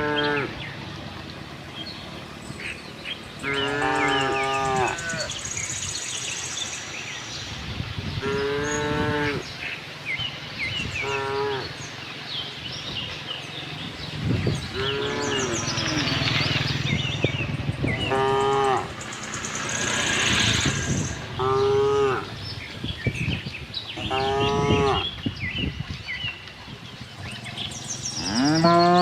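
Cattle mooing, one call about every three seconds, each a drawn-out moo of about a second that bends up and then down in pitch, with small birds chirping faintly in the background.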